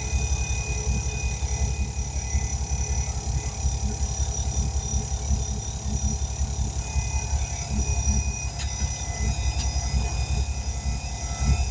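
Air compressor running steadily, building up pressure to about 60 psi for seating a tire bead, with a fast low pulsing rumble and a faint high whine. Two light clicks come near the end.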